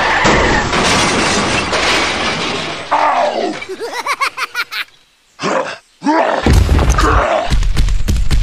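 Added sound effects for a toy tractor crash: a long crashing, shattering noise, then a run of short grunting voice bursts, a brief pause, and a heavy low rumble with rapid knocks.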